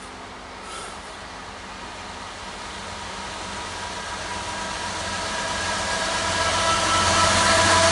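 Diesel locomotives leading a CSX intermodal freight train approaching, growing steadily louder, with a steady whine of several tones rising out of the engine noise.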